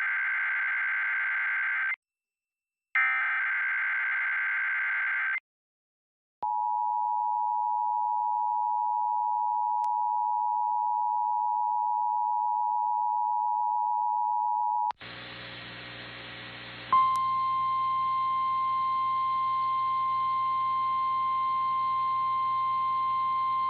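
Emergency Alert System tones. First come two bursts of the warbling digital SAME header data. After a brief silence, the two-tone EAS attention signal is held steady for about eight and a half seconds. It gives way to a low hum and hiss, and a single steady tone rises above it a couple of seconds later and holds to the end.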